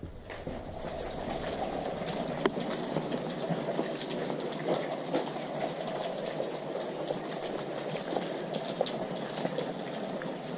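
Water dripping and trickling off a rock overhang: a dense, steady patter of many small drops splashing, swelling over the first second or so.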